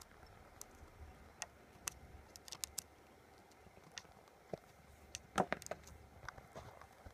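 Faint scattered ticks and scratches of a Japanese tiger beetle's legs and jaws on paper towel in a glass cup as it grips and bites a mealworm, with a louder cluster of clicks about five and a half seconds in.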